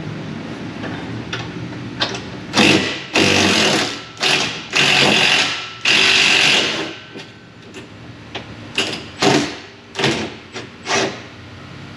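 Hand-held power tool run in a series of bursts, several long ones of about half a second to a second, then shorter blips near the end.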